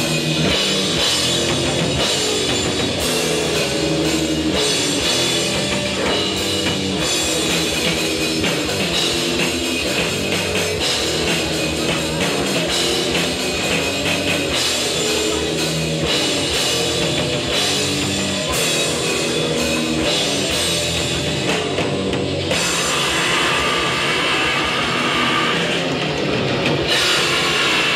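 Live hardcore punk band playing loud and fast: distorted electric guitar over a pounding drum kit.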